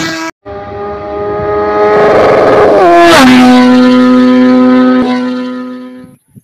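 Engine-style intro sound effect. A loud, steady pitched drone swells up, drops sharply in pitch about three seconds in with a whoosh, holds a single low note, then cuts off suddenly near the end.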